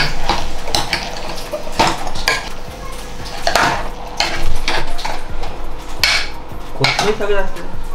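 A metal spoon stirring raw chicken pieces and green masala in a metal pressure cooker, with irregular clinks and scrapes of the spoon against the pot.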